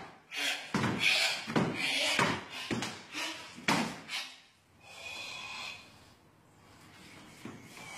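Bare feet stamping on a wooden floor and a karate uniform snapping as a kata is performed, with a run of sharp knocks in the first four seconds, then a forceful breath through the nose about five seconds in.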